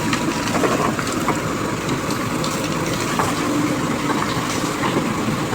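Diesel engine of road-repair machinery running steadily, with frequent small clanks and rattles.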